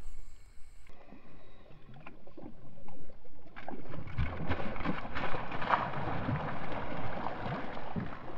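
A hooked bass thrashing and splashing at the water's surface, starting about three and a half seconds in and going on in repeated splashes.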